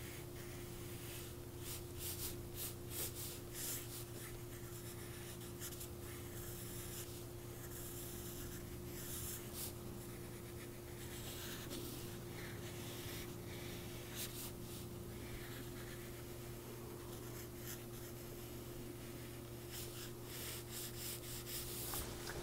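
Pencil sketching on paper: faint scratchy strokes coming in clusters with short pauses between them, over a steady low hum.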